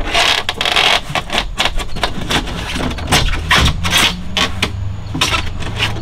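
Rigid insulation foam board scraping and squeaking against plywood and against other foam blocks as it is pushed down into a tight-fitting tunnel, in a run of irregular short scrapes.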